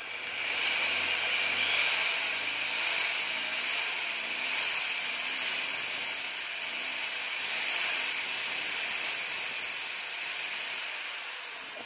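Electric drill running steadily as it bores a hole through a plastic mudguard, a hissing whir that swells in the first second and fades slowly toward the end.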